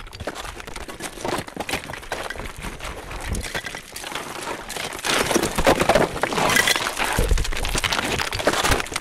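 Rockfall: stones cracking, breaking away and clattering down, with a few low thuds, growing louder about halfway through.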